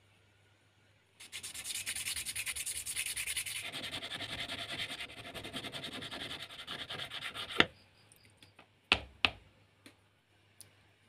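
Small ribbed PVC plastic part sanded flat by hand, rubbed back and forth in quick, even strokes for about six seconds. It ends in a sharp click, followed by two loud sharp taps close together and a few faint ticks.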